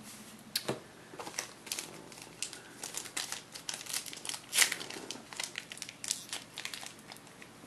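Trading-card pack wrapper being torn open and crinkled by hand: irregular light crackles and rustles.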